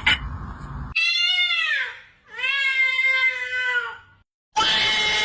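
A cat meowing: two long, drawn-out meows, the first rising then falling in pitch, the second longer and falling away at its end. Near the end, after a brief silence, a louder noisy sound with steady tones starts.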